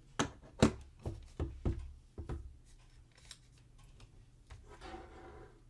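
Long fingernails and hands working at a sealed iPad box: a quick run of sharp clicks and taps on the cardboard and plastic, then softer rubbing about five seconds in.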